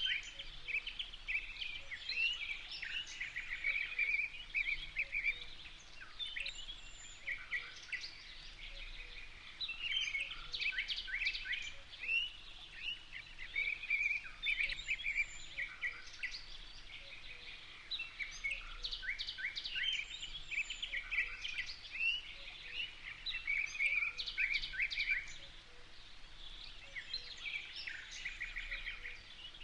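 Birds chirping and singing in quick, overlapping chirps and short trills. They come in bouts, with brief lulls between them, over a faint steady background hum.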